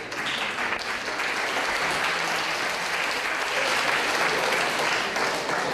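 A large lecture-hall audience applauding: a steady round of many people clapping that tails off near the end.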